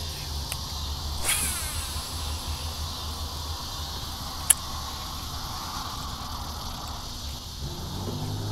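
Steady insect chorus with a low steady hum beneath it. A brief swish comes about a second in, and a single sharp click about four and a half seconds in.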